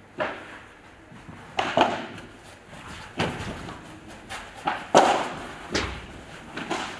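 Padel rally: the ball struck by solid padel rackets and bouncing, a string of sharp pocks about one to one and a half seconds apart, echoing in a large indoor hall.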